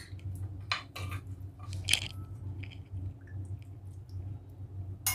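A metal spoon mixing flour-coated paneer cubes in a glass bowl: soft squishing and scraping with light clicks of the spoon on the glass, and a sharper ringing clink near the end, over a low steady hum.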